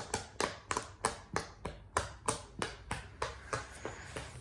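Silicone pop-it fidget toy having its bubbles pressed one after another, each giving a sharp pop, about three to four pops a second, thinning out near the end.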